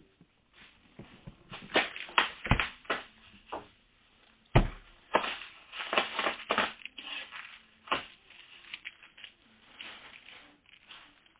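Packaging and items being handled: rustling, scraping and tapping, with a few thumps as things are set down, the loudest about four and a half seconds in.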